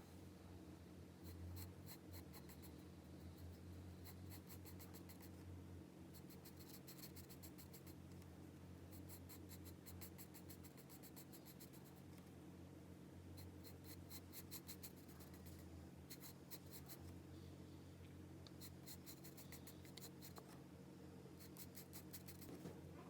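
Pencil on paper: bursts of quick back-and-forth shading strokes, each a second or two long, with short pauses between. Faint, with a steady low hum underneath.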